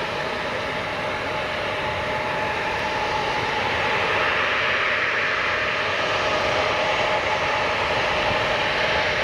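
Jet airliner's engines running, a dense steady noise with a whine through it, growing louder about four seconds in.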